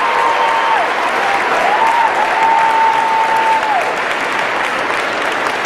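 An audience applauding steadily, with two long held cheers rising above the clapping, the second ending in a falling glide a little past halfway.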